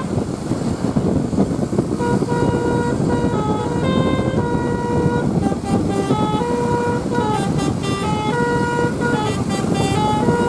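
Basuri telolet bus horn, a multi-trumpet musical air horn, playing a tune of held notes that step up and down, changing quicker near the end, over the bus's running and road noise.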